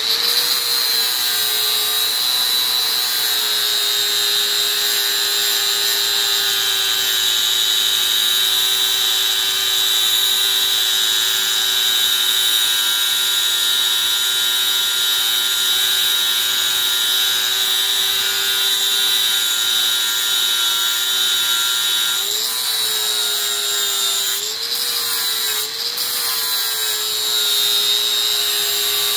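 Electric angle grinder running steadily while grinding the cutting edge of a steel lawn mower blade to sharpen it, a constant high whine. The pitch dips and recovers a few times near the end as the disc is pressed into the steel.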